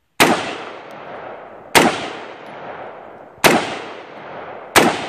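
AR-15 rifle in .223 firing four single semi-automatic shots, spaced about one and a half seconds apart, each sharp crack trailing off slowly.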